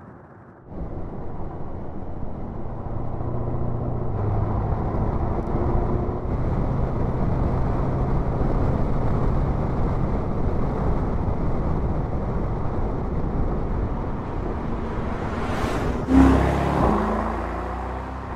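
Mercedes-AMG SL's twin-turbo V8 pulling steadily as the car drives at speed, its exhaust note holding fairly even. Near the end a rising rush leads into a sudden louder burst.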